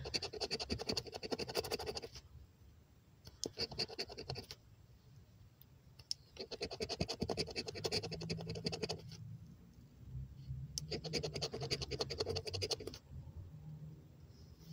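A lottery scratch-off ticket being scraped with the edge of a metal keychain pendant. There are four bouts of quick back-and-forth scratching, each lasting one to three seconds, with short pauses between them as the coating comes off the play area.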